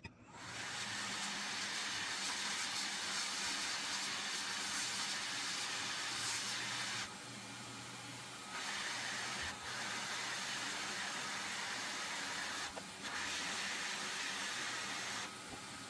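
Hot-air rework station blowing a steady hiss of air while the defective ACFET MOSFET on a laptop motherboard is desoldered and its replacement is soldered on. The hiss drops lower for a while about seven seconds in, dips briefly near thirteen seconds, and drops again near the end.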